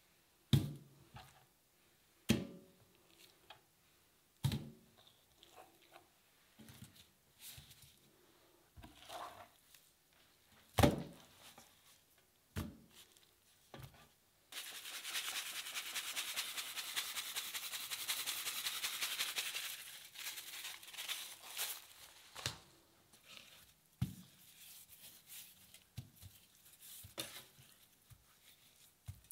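Raw tuna strips being handled and dropped into a stainless steel pan, a few sharp thuds in the first half. Then dry salt is poured over the fish: a dense, sandy hiss for about five seconds, followed by softer rustling as hands move the salted strips.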